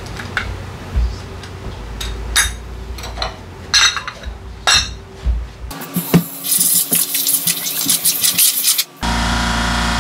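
Metal scooter drivetrain parts clinking and knocking as they are handled, with several sharp ringing clinks. About six seconds in the sound changes to a hiss with fast rattling. Near the end it changes again to steady held tones.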